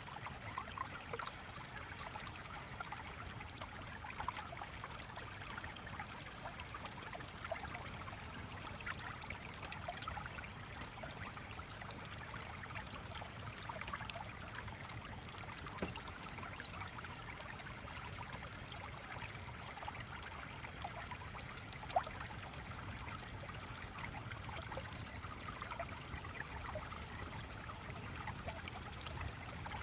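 A small stream trickling and babbling steadily, with one sharper click about two-thirds of the way through.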